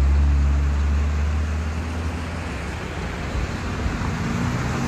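A motor vehicle's engine running close by: a deep, steady rumble that is loudest in the first second, eases off through the middle and swells slightly again near the end.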